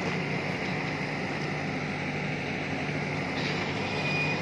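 Steady low machine hum over an even background noise, with no distinct events.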